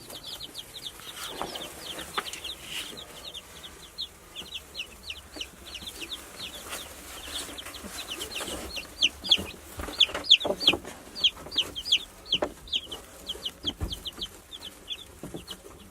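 A group of chickens calling with many short, high-pitched peeps, several a second, growing busier about nine seconds in. A few soft knocks come in among them.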